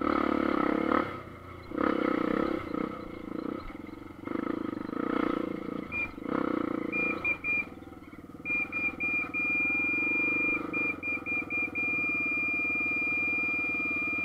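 Enduro motorcycle engine opened up in short throttle bursts for the first several seconds, then running at a steady speed. A thin high tone comes in about six seconds in, broken into short beeps at first and held unbroken near the end.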